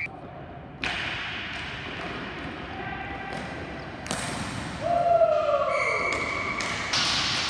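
Sharp knocks of ball hockey sticks and ball on the rink, three of them at about one, four and seven seconds in, each ringing on in the large hall. A short falling tone comes near five seconds.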